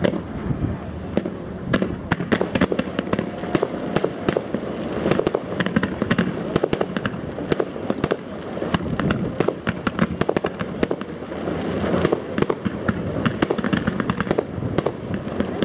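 Fireworks display: a volley of rising comet trails fired in quick succession, giving a dense, unbroken barrage of pops, bangs and crackling.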